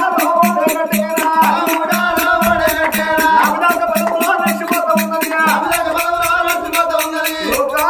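Oggu Katha folk music: a held, sung melody over a fast, even jingling percussion beat of about five strokes a second.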